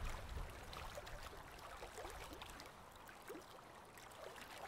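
Hand saw cutting a round off a dead log, faint and noise-like, with no clear stroke rhythm.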